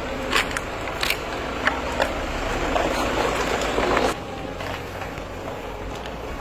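Street traffic noise from passing motor vehicles, swelling over the first four seconds, then cutting off abruptly to quieter outdoor street ambience.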